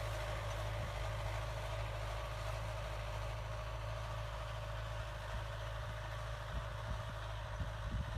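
Belarus 820 tractor's four-cylinder diesel engine running steadily under load while pulling a plough through the field.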